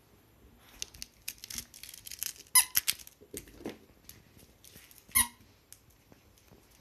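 A Shiba Inu biting a squeaky plush dog toy. It sets off a quick run of squeaks for about two seconds, then one more loud squeak a couple of seconds later.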